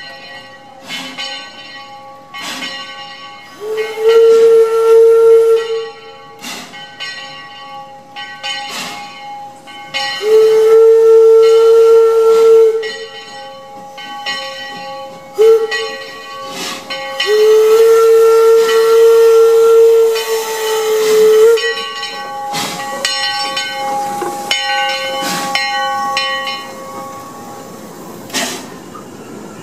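Steam locomotive whistle blowing the grade-crossing signal: two long blasts, a short one and a final long one. Under it the locomotive's bell rings steadily, about once a second.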